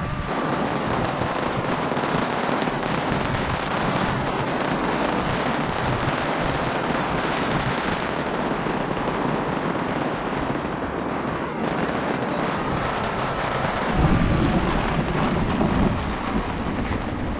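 Heavy rainstorm: dense, steady rain pattering, with a strong gust of wind buffeting the microphone about fourteen seconds in.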